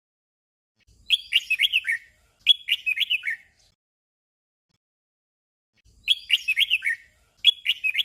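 Red-whiskered bulbul singing short, quick whistled phrases of sweeping notes, delivered doubled: two phrases in quick succession about a second in, then another such pair about six seconds in.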